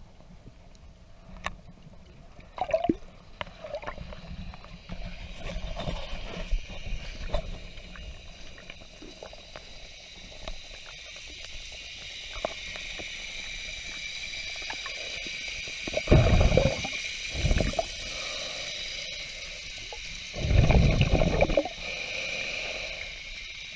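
Lake water gurgling and sloshing around a submerged camera, with scattered small clicks and knocks. Two louder rushes of water or bubbles come about two-thirds of the way through, the second one longer.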